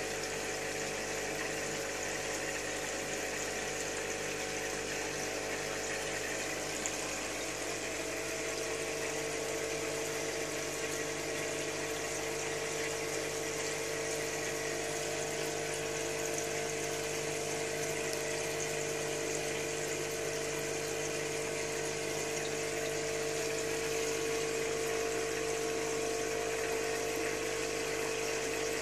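Aquarium filter pump running: a steady hum with an even wash of moving, bubbling water over it.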